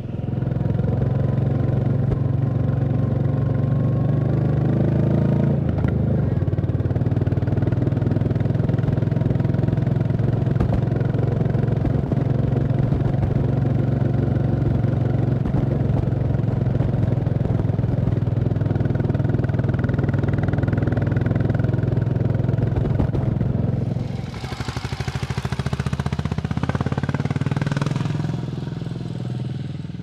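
Royal Enfield Classic 350's single-cylinder engine running steadily as the motorcycle rides a dirt road. About 24 s in the sound changes to a rougher hiss over the engine, with tyres on loose dirt, as the bike goes by on the dusty track.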